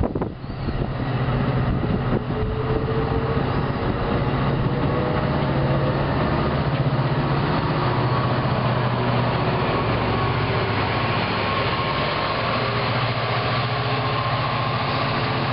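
NJ Transit push-pull commuter train rolling past, its locomotive's engine giving a steady low drone over the rumble of the wheels. The sound grows fuller as the locomotive at the rear of the train draws near.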